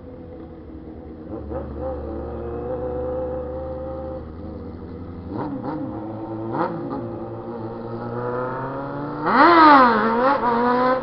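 Motorcycle engine running at a steady idle with a few short throttle blips, then revved hard near the end, its pitch rising, falling and rising again.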